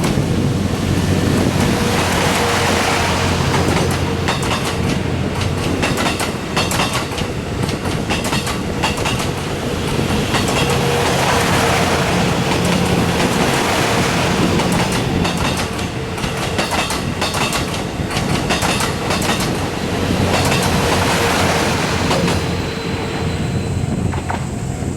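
Long passenger train passing over a level crossing close by, its wheels clattering over the rail joints in a quick run of clicks that swells and eases again and again as the cars go by.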